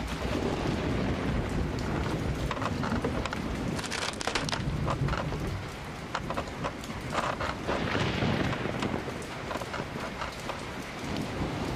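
Steady rain with low thunder rumbling, and a few sharp knocks about a third and two-thirds of the way through.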